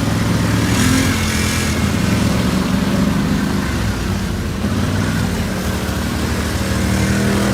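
Small off-road vehicle engine running at fairly steady revs, with a brief hiss about a second in.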